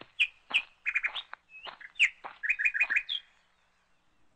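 Bird chirping: a quick string of short, high chirps, some in fast runs of three or four, for about three seconds, then it stops.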